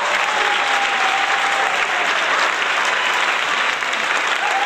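Audience applauding steadily, a dense clapping texture with a few faint held tones over it.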